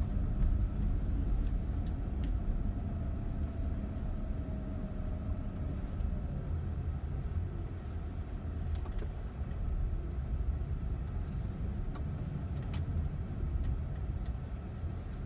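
A car driving slowly, heard from inside the cabin as a steady low rumble of engine and tyres, with a few faint clicks.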